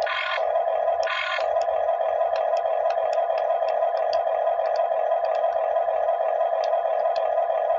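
Remote-control toy excavator giving a steady high electric whine, with two short, louder whirring bursts at the start and about a second in as its boom and bucket are driven down.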